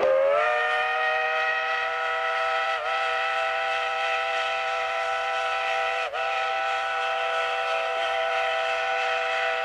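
Steam whistle of a Shay geared steam locomotive, Cass Scenic Railroad's Shay #5, blowing one long blast with several notes sounding together. The pitch rises slightly as it opens, then holds steady with two brief dips.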